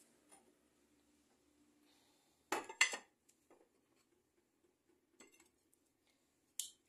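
Two quick clatters of kitchenware about two and a half seconds in, then a few faint clicks.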